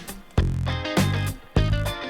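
Background music: an upbeat track with a steady bass beat and plucked guitar notes.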